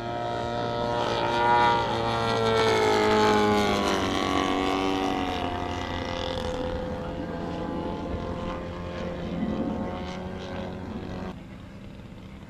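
Engine and propeller of a model Gee Bee airplane flying past, the pitch rising and then falling as it passes, loudest in the first few seconds. The sound drops off abruptly near the end.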